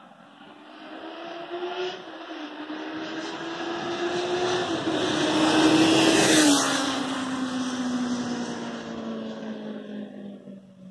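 Honda CBR650F inline-four motorcycle on its stock exhaust, passing by: the engine note builds, is loudest about six seconds in, drops in pitch as the bike goes past, then fades as it pulls away.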